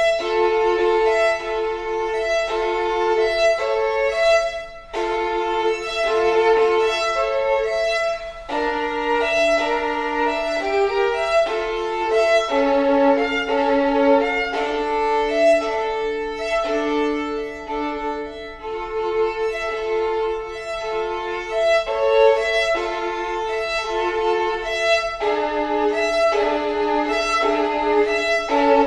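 Unaccompanied violin playing a contemporary classical piece: fast, evenly repeated bowed notes, often two strings sounding together as double stops, moving through shifting pitches without a break.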